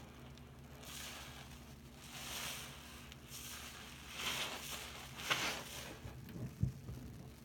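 Soap-soaked sponge squeezed repeatedly in a sink of sudsy water: wet squelching and crackling foam about once a second, with a low thump near the end.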